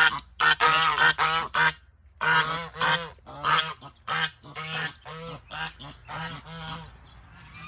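Domestic geese honking in a quick series of loud calls, with a short break about two seconds in. The calls grow quieter and stop about seven seconds in.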